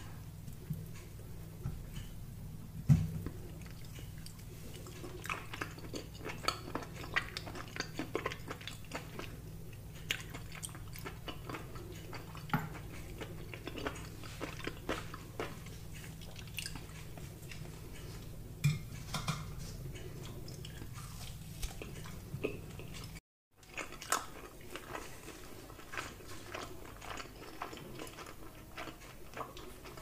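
Close-miked eating sounds: chewing and biting lamb ribs and tzatziki, with many short wet mouth clicks and a few louder sharp clicks, the loudest about three seconds in. The sound drops out briefly about 23 seconds in.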